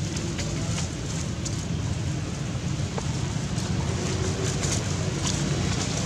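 Low, steady rumble of wind buffeting the microphone, with a few light rustles and clicks of dry leaves over it.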